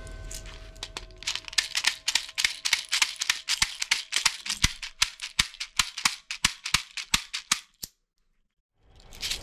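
Rapid plastic clicking as beads are pushed one by one into a translucent toy-gun bead magazine, about four to five clicks a second. The clicks stop abruptly near the end.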